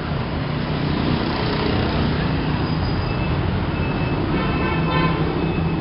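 Steady mechanical rumble with a low hum, and a short cluster of faint high tones about four to five seconds in.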